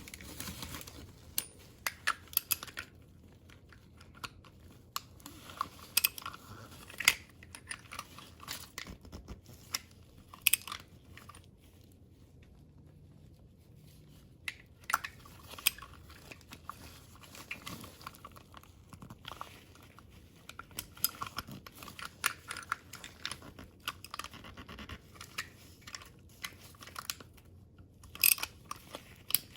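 Irregular light clicks, taps and scrapes of small metal parts and tools being handled while an oil filter is taken apart and cleaned, coming in scattered clusters with short pauses between them.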